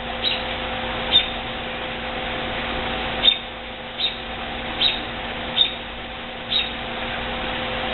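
A bird chirping in short, high notes, about seven of them roughly a second apart, over a steady mechanical hum.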